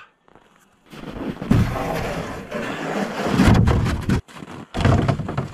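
A black plastic sled being handled on hard snow: scraping and crunching, in a long stretch from about a second in and a shorter one near the end.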